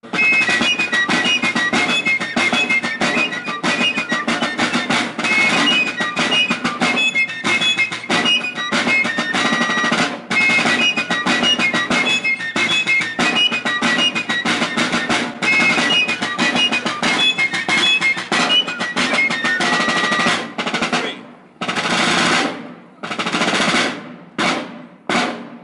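Fife and drum music: fifes play a quick melody over rapid snare drumming. About twenty seconds in the fifes stop, and the drums play a few short rolls separated by brief pauses.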